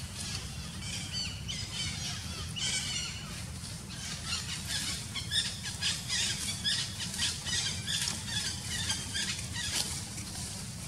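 Monkeys giving high-pitched squeals and chirps: a few short gliding calls in the first seconds, then a fast run of squeaks from about four seconds to near the end, over a steady low rumble.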